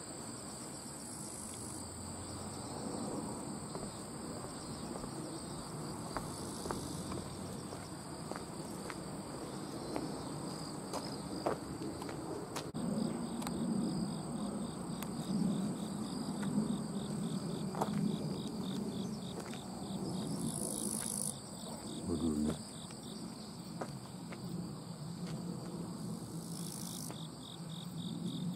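Insects trilling in grassland: a steady high-pitched whine, joined about halfway through by a rapid pulsing trill, over a low outdoor rumble.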